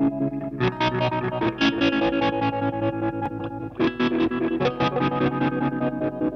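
Distorted electric guitar music: quickly picked notes over held notes.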